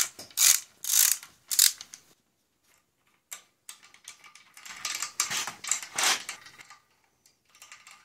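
Threaded headset parts of a bicycle being unscrewed by hand from the head tube to free the fork: short rasping, ratchet-like metal clicks in bursts, a pause about two seconds in, then a longer gritty stretch of turning.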